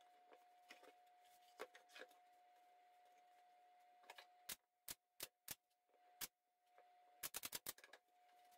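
Faint, scattered clicks and taps of a wooden box and plastic bar clamps being handled and set down on a wooden bench, ending in a quick run of clicks. A faint steady tone hums underneath.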